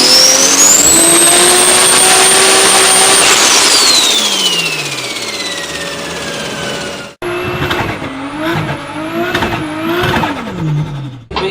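Turbocharged car engine revving, its turbo whistle rising high, holding, then falling slowly as it spools down. After a cut, another turbocharged car engine is revved up and down several times.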